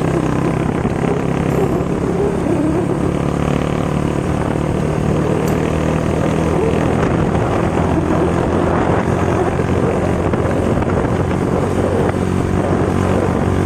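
Motorcycle engine running at a steady speed without revving, heard while riding, with wind on the microphone.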